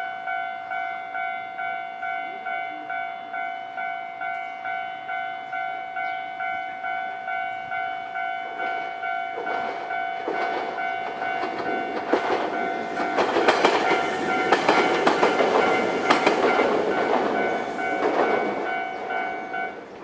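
A Japanese level crossing's electronic warning bell dings steadily, about one and a half strikes a second, as a train passes through from about nine seconds in. The train's wheels clatter over the rail joints, loudest in the second half, and the bell stops just before the end as the crossing clears.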